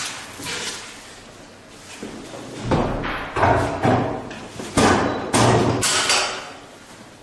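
Heavy knocks and scraping thumps as the facing (milling) tool of a hydraulic butt fusion pipe welder is handled and lifted out from between the pipe ends after trimming. The knocks come as about four bursts in the second half.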